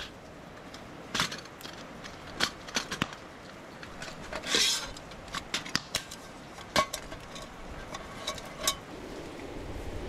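Metal camp cookware being handled, giving a series of sharp clinks and knocks, some with a short ring. A brief rushing noise comes about four and a half seconds in.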